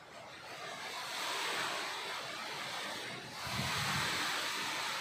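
Rain falling, a steady hiss that swells twice, with a low rumble of wind on the microphone about three and a half seconds in.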